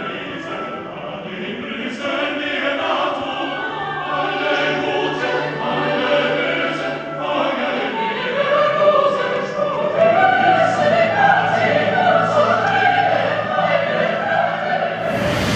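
Choir and symphony orchestra performing a classical choral work together, voices over strings with held low bass notes. In the last moment the music breaks into a sudden noisy swish.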